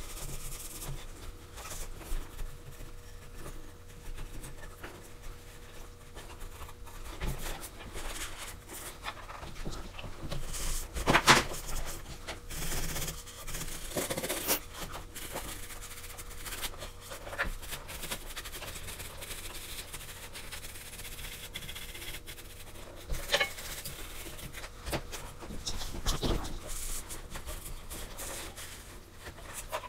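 Cloth wiping and rubbing over plastic Bose Acoustimass cube speakers, with irregular handling clicks and knocks as the cubes are turned and set down. The loudest knock comes about eleven seconds in.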